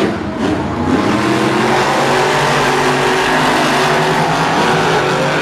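Monster truck engines running loud, settling into a steady held pitch about a second in, with a few short sharp knocks just before.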